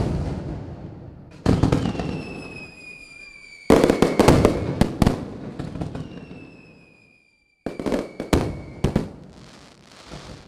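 Aerial fireworks bursting overhead: loud bangs in clusters, each fading into a crackling decay, with a thin whistle sliding slowly down in pitch between the bursts.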